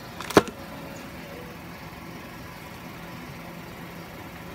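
A sharp click from the Double Bell Glock 17 gas blowback airsoft pistol being handled, just after a couple of lighter clicks, about half a second in. A steady low hum stays under it throughout.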